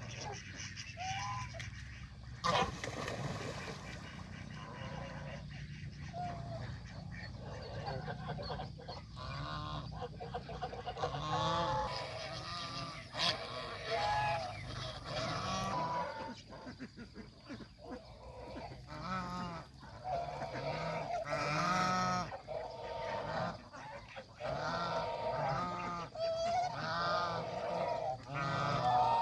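Domestic geese honking, many short calls overlapping, coming thicker and louder in the second half.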